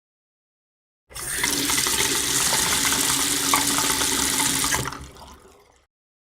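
Water running in a steady stream for about four seconds, starting abruptly and then fading out.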